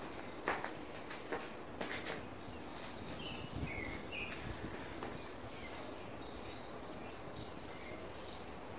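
Faint outdoor background ambience: a steady hiss with a thin high tone, scattered short high chirps and a few soft taps.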